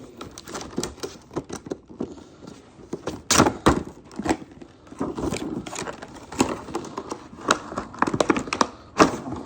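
A toy box and its plastic packaging being opened by hand: irregular clicks, taps and rustles, with a sharper knock about three and a half seconds in.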